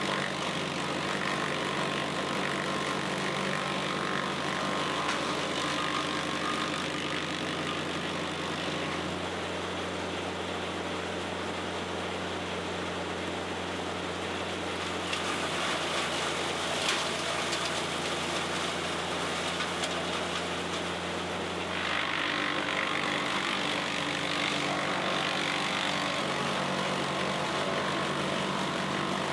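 Bandit Model 90XL brush chipper's diesel engine running steadily while chipping brush, its note shifting a few times, with a louder, noisier stretch about halfway through and again over the last several seconds.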